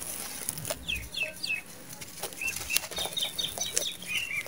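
Dry red dirt clods being crumbled and rubbed between the hands, giving scattered gritty crackles and crunches. Birds chirp in short repeated notes in the background from about a second in.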